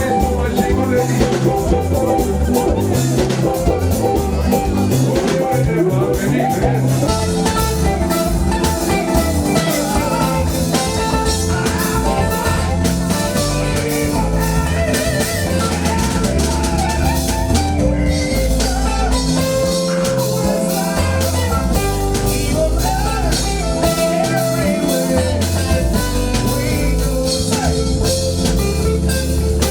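Band music with guitar and drum kit playing a steady beat, with some singing.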